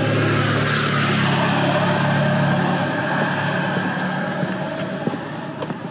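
A motor vehicle driving past, its steady engine hum and tyre noise fading away over the last few seconds.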